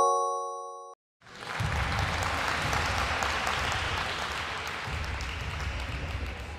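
A bright chime fades out over the first second as the correct answer is revealed, then about a second in a recorded applause sound effect starts and runs steadily, tailing off near the end.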